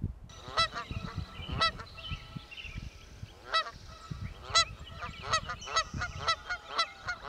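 Birds calling: repeated short honking calls, one or two a second and irregular, over fainter chatter of other birds.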